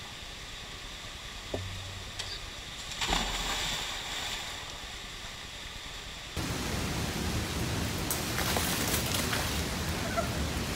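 Rushing river and stream water, a steady noisy wash, with a splash into the water about three seconds in. The rush of water gets suddenly louder about six seconds in.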